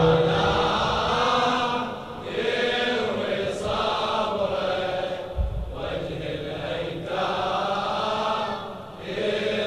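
A crowd of male mourners chanting the refrain of a Shia latmiya lament together, in long drawn-out phrases of two to three seconds with short breaks between them.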